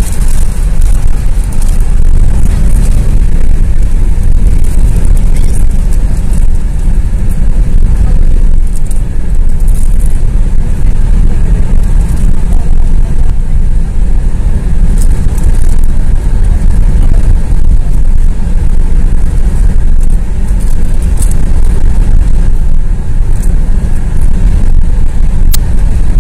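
Car driving at highway speed, heard from inside: a loud, steady low rumble of road and wind noise.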